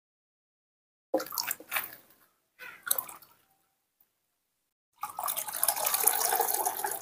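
A hand sloshing and splashing water in a metal basin, in two short bouts. About five seconds in, a steady stream of water starts pouring from a kettle into the basin.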